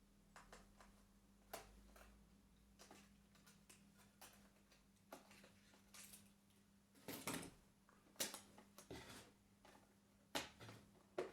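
Faint, irregular clicks and light knocks of hands handling computer parts while installing RAM in an iMac, with a few louder clicks later on, over a faint steady low hum.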